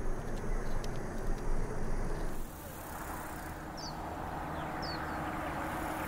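From about two and a half seconds in, a minivan approaches on the road, its engine and tyre noise slowly growing louder. Small birds chirp briefly a few times over it.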